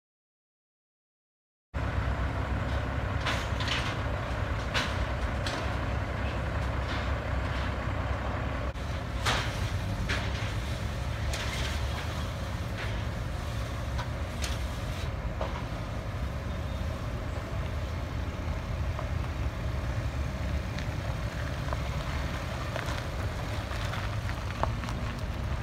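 After a moment of silence, a vehicle engine runs steadily with a low rumble, while clanks and clicks come between about three and fifteen seconds in as a Ford Bronco Sport rolls down the car carrier's steel ramps.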